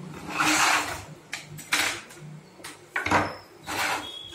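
Plastic and metal parts of a partly dismantled Epson L380 ink-tank printer being handled and shifted on a table, making several short bursts of clatter and rattle.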